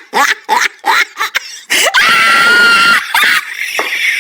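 A voice laughing in quick short bursts, then a loud, high-pitched scream held for about a second, about two seconds in, followed by a few more short laughs.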